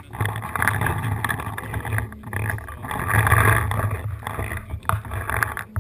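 Uneven rumbling noise of wind and handling on a body-worn camera's microphone as the wearer moves, with a few sharp clicks in the second half.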